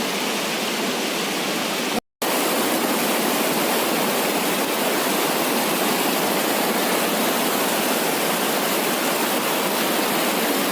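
Steady rush of flowing water, a continuous even hiss with little deep rumble, cutting out for a split second about two seconds in.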